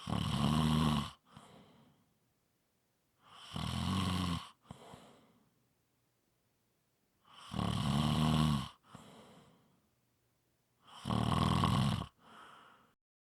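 A sleeper snoring: four loud snores of about a second each, spaced roughly three and a half seconds apart. Each snore is followed by a short, softer puff of breath.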